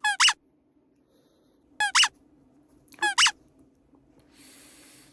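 Three loud, high, pitched squeaks, each in two quick parts, spaced over about three seconds, then a short faint hiss near the end.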